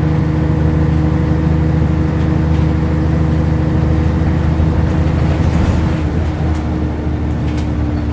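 Scania N113CRB bus's rear-mounted 11-litre six-cylinder diesel engine running steadily as the bus drives along, heard from inside the passenger saloon.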